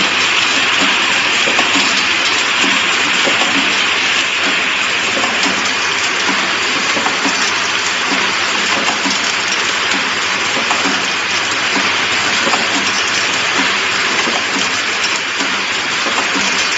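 Automatic three-head rotary plastic-cap assembly machine running: a steady, dense rattling hiss made of many small clicks.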